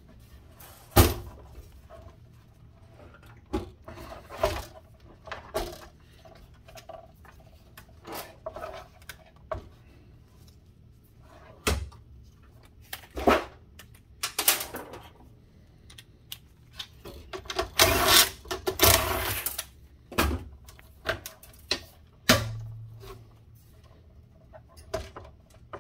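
Intermittent clicks, knocks and scraping of hand tools and metal parts being worked inside a sheet-metal instrument chassis, as a lab pump is pried apart. There are scattered sharp knocks and two longer rattling, scraping spells, one in the middle and a louder one about two-thirds of the way through.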